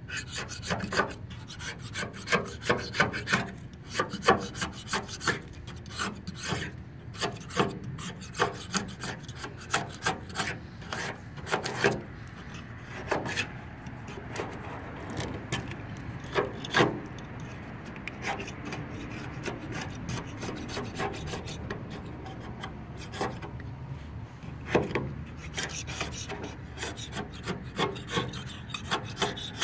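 A handheld razor-blade scraper scraping paint off a car's body panel in quick, irregular, repeated strokes. The strokes thin out for a while after the middle.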